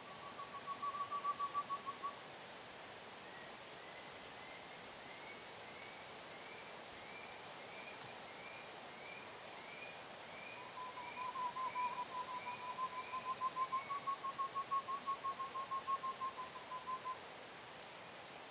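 Uru (spot-winged wood-quail) rolling call: a fast trill of pulsed notes on about one pitch, heard briefly about a second in and again for several seconds from about ten seconds in. Between them is a fainter series of short rising notes, about one and a half a second, over a steady high insect buzz.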